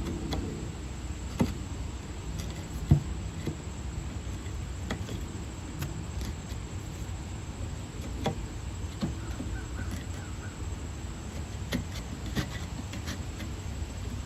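Scattered light clicks and taps of plastic housing parts and tools being handled while a Milwaukee M12 stick transfer pump is taken apart, the sharpest about three seconds in, over a steady low hum.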